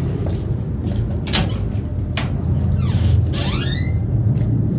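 A sheet-metal gate clicking and scraping, with a rising metallic squeal about three seconds in, over a steady low rumble.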